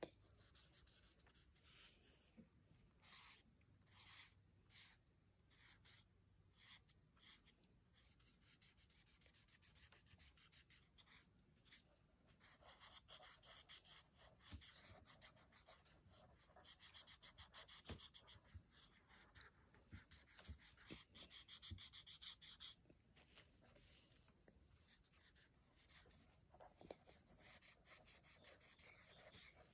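Faint scratching of a liquid chalk marker's tip rubbing back and forth on a coloring page in many short strokes, busiest around the middle.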